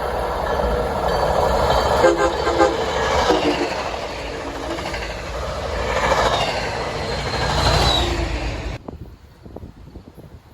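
A passenger train passing close by: a loud, steady rush of wheel and rail noise with a few short horn notes in the first few seconds. It cuts off abruptly about nine seconds in.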